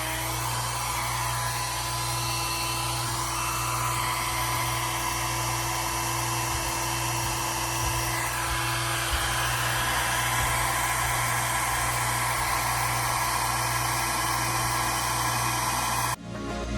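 Hair dryer running with a steady blowing whir and a constant motor hum, cutting off suddenly near the end.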